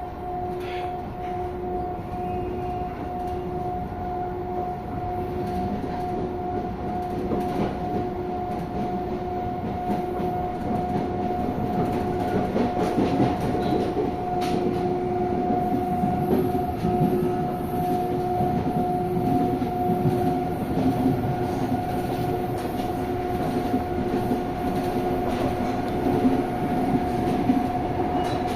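Inside a CPTM Série 2000 electric multiple unit running on the line: the rumble of wheels on rail with a steady electrical hum, growing a little louder over the second half, with occasional faint clicks.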